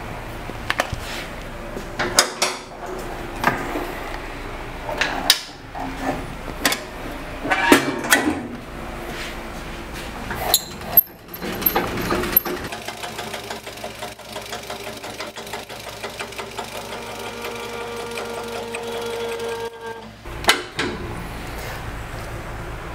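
Changing a CWI Scorpion 16-inch jointer-planer over from jointer to planer: scattered metal clunks and clicks as the jointer tables are unlocked and swung up. Then, from about halfway, a steady fast clicking as the handwheel is cranked to raise the planer bed, which takes some force.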